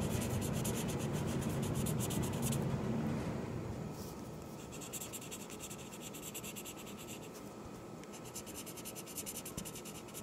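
Felt-tip marker scribbling rapidly back and forth on paper, a fast run of scratchy strokes. It pauses briefly about three seconds in, then carries on.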